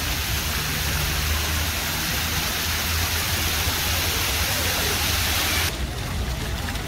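Water rushing down the stepped stone cascade of an ornamental fountain: a steady hiss that drops away sharply a little before the end, over a low steady rumble.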